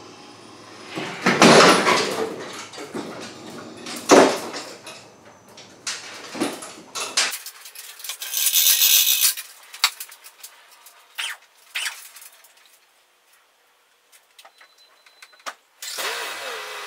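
Hand-operated chain hoist being worked with a zero-turn mower hanging from it: irregular metal clanks and knocks, then a longer rattle of the chain running through the hoist, and a few scattered clicks.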